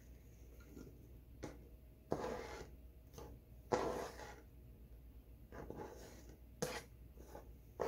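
Fingers sweeping sliced spring onions across a plastic cutting board into a bowl: a few short, soft scraping rustles, the sharpest about two, three and a half and six and a half seconds in.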